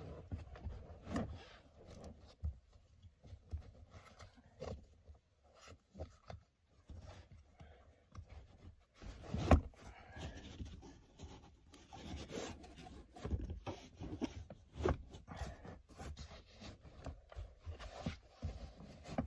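Hands working seat-belt buckles through the slots of a car's fabric rear seat cushion and shifting the cushion: irregular rubbing and scuffing of fabric and plastic, with scattered knocks, the loudest a little before halfway.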